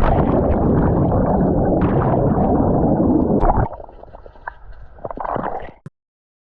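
A person plunging into a swimming pool: loud churning water noise from the entry, dropping off about three and a half seconds in to quieter sloshing with a few small splashes, then cutting off suddenly.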